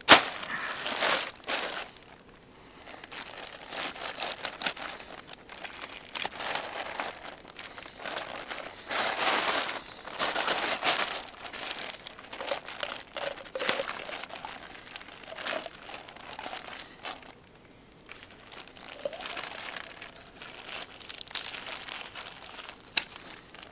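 Crinkling and rustling handling noise with light knocks while a trout is cleaned and filleted; a sharp click right at the start and another near the end.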